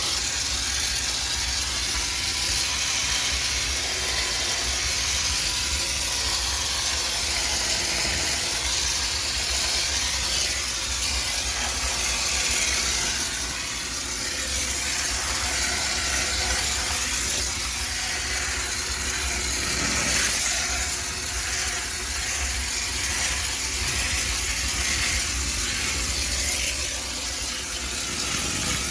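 High-pressure steam cleaner jetting steam into a washing machine drum: a steady loud hiss with a low hum underneath, easing off briefly twice.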